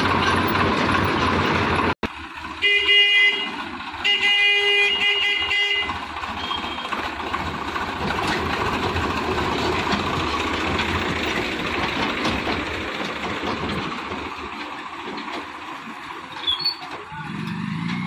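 A tractor's diesel engine running as it tows a concrete mixer trailer, with a vehicle horn sounding twice a few seconds in, the second toot longer; the horn blasts are the loudest sounds.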